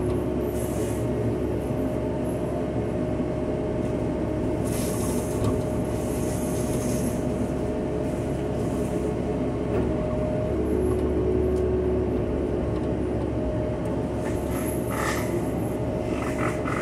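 Cat 311 excavator's diesel engine and hydraulics driving a flail mower head, heard from inside the cab: a steady machine drone with a constant whine in it. A few times a brief crackle breaks in as the flail shreds brush and wood.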